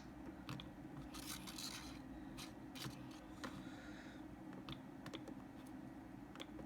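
Faint scattered clicks and light scratching from a Sony Ericsson W902 mobile phone being handled and its keys pressed.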